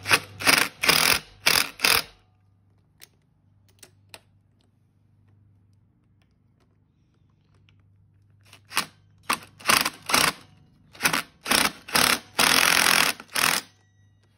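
Cordless impact driver run in short bursts, about five in the first two seconds and about seven more from about nine seconds in, the last one longer. It is snugging nuts on the clutch side of a Honda CRF110 engine, run gently rather than torqued hard.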